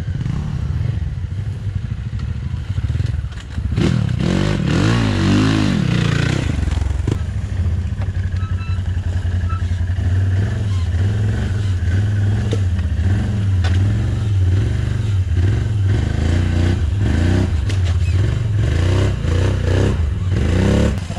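Quad bike (ATV) engine running under load through mud and water, the revs rising and falling several times, most strongly about four seconds in and again near the end.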